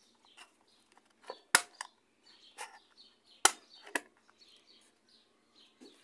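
Sharp plastic clicks and knocks from a Maytag washing-machine timer being handled and worked: two loud clicks about two seconds apart, with a few softer ticks between them.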